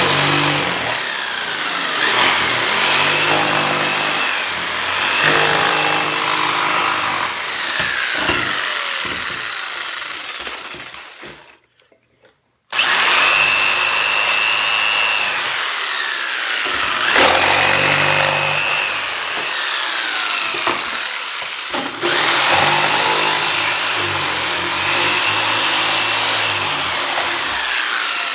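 Ryobi corded jigsaw cutting through plywood along a curved line, its motor speed rising and falling as the blade is steered. The saw stops briefly about twelve seconds in, then starts cutting again.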